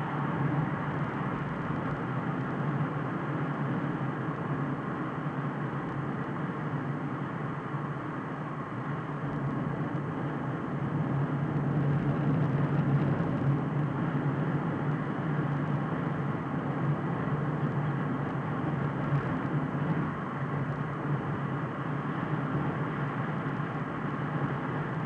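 Car driving at a steady cruising speed, heard from inside the cabin: an even drone of engine and tyres on the road, with a low hum.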